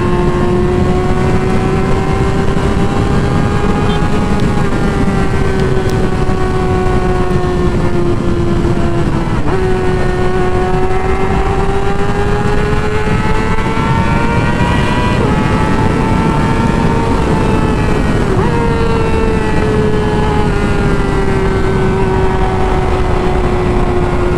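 Yamaha R6's inline-four engine running at high, steady revs while riding, its pitch slowly rising and falling, with a brief dip about nine seconds in. Heavy wind noise on the microphone rushes underneath.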